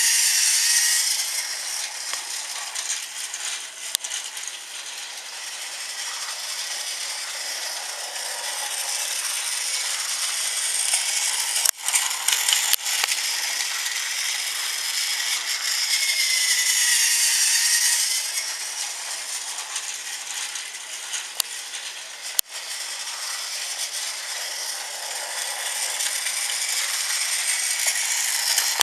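Battery-powered Thomas Trackmaster toy train running: its small motor and gears whirring and its wheels rattling over the plastic track, swelling louder as it passes close, about a second in and again a little past halfway. A few sharp clicks along the way.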